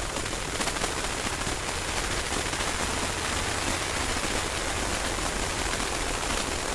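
Harsh noise music: a dense, steady wall of hiss and crackle spread across all pitches, with a low hum underneath.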